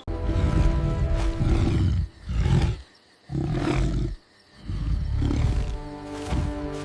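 A deep, rough animal roar sound effect in four long stretches broken by short pauses, with music underneath.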